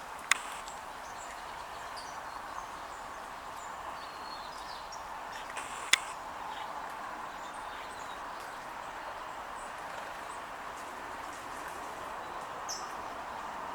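Faint, scattered chirps of small songbirds over steady background noise, with a sharp click about a third of a second in and another about six seconds in.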